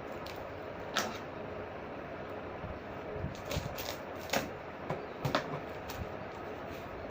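A shipping package being opened by hand: scattered sharp clicks and crackles of the packaging, a handful of them, over a steady background hiss.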